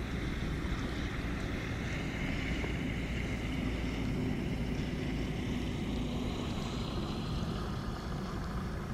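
Small single-engine light aircraft passing low overhead, its propeller engine running with a steady hum, mixed with wind noise on the microphone.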